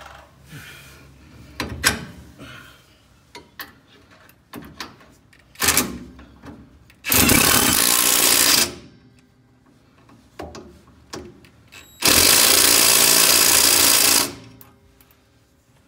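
Cordless impact tool hammering on the lower shock-mount bolt of a Ford Ranger's rear axle in two bursts, one of about a second and a half some seven seconds in and one of about two seconds near twelve seconds in: the bolt for the new rear shock being run in and tightened. Before the bursts come short metal clicks and knocks as the bolt and socket are fitted.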